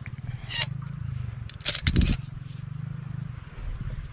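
Handling noises as a caught fish is dealt with by hand: a sharp click a little after the start, then a quick run of clicks and a scrape about two seconds in, over a low steady hum.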